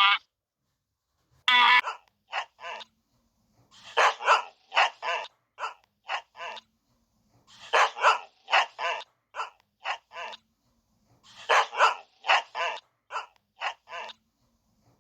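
Dog barking in quick series: about five bouts of several short barks each, with pauses of silence between the bouts.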